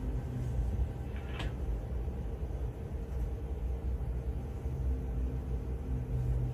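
Steady low rumble and faint hum heard inside an airport control tower cab, with one brief faint click about a second and a half in.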